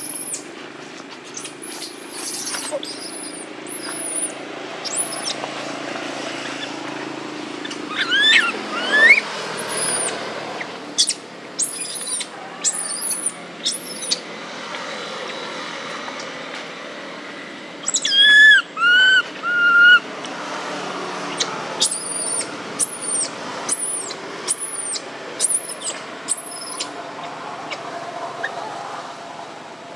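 Baby macaque giving high, thin cries: one about eight seconds in and three in a quick row around eighteen seconds. Short high chirps are scattered throughout over steady background noise.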